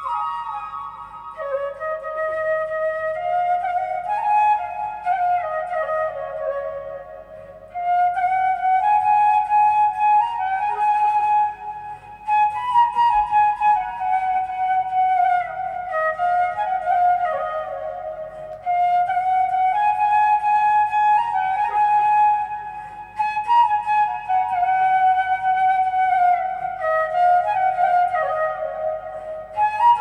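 Background music: a flute playing a melody of stepped, held notes over a faint low accompaniment.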